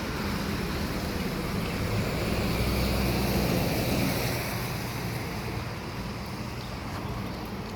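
A vehicle passing on a wet road, its tyre hiss and engine hum swelling to a peak about halfway through and then fading.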